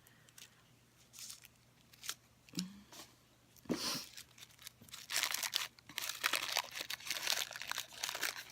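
Soap packaging being handled and crinkled as it is worked open: a few scattered crackles at first, then steady dense crinkling and rustling from about five seconds in.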